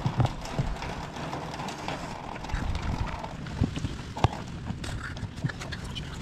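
Irregular light knocks and clicks of small car trim parts being handled and fitted back into place, with one sharper knock about four seconds in.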